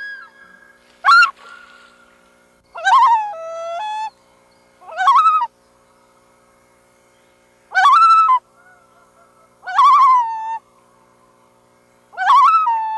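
Loons calling: six short wavering calls about two seconds apart, each with a quavering, rippling pitch.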